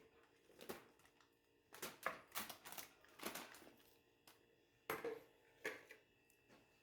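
Cooked vegetables being spread around meat on a tray lined with baking paper: faint, scattered taps and crinkles, about one every second.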